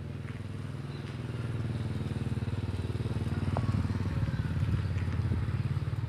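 A small engine running and growing steadily louder, as if approaching.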